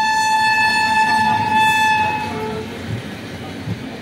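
Indian Railways locomotive horn sounding one long, steady blast that stops about two seconds in. Underneath and after it comes the rumble and clatter of the train running on the rails.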